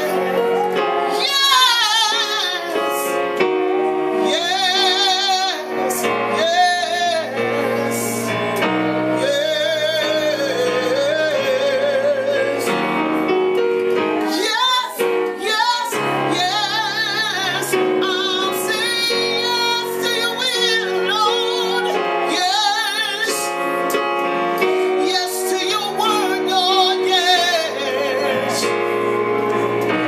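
A woman singing with a wide vibrato, accompanying herself on an electronic keyboard with sustained piano chords.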